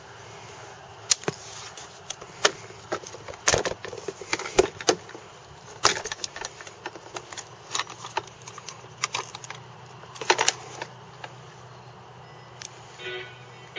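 Irregular clicks and knocks, several sharp and loud, scattered over a faint steady hum.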